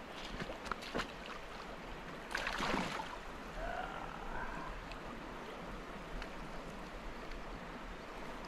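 Shallow river water flowing steadily, with a few sharp clicks in the first second and a brief louder rush of noise about two and a half seconds in.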